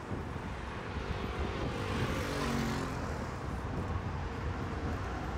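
Road traffic on a multi-lane urban road: a steady rush of tyres and engines, with a vehicle passing close about two seconds in, its pitch falling as it goes by.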